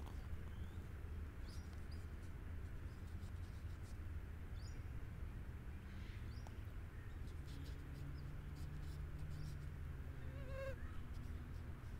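A fly buzzing steadily for a few seconds in the second half, over a low steady outdoor rumble, with faint high bird chirps scattered throughout. A short pitched call comes just before the end.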